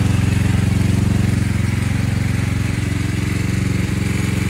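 A 450 motocross bike's single-cylinder four-stroke engine idling steadily and loudly, at an even pitch throughout.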